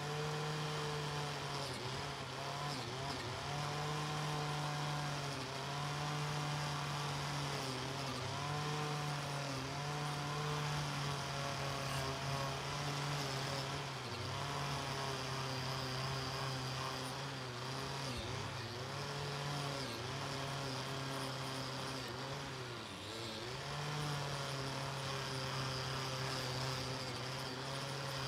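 Power tool spinning a crimped wire wheel brush against a rusty steel knife blade, stripping the rust. The motor runs with a steady whine over a hiss of wire scrubbing metal, and its pitch sags briefly several times as the wheel is pressed onto the blade.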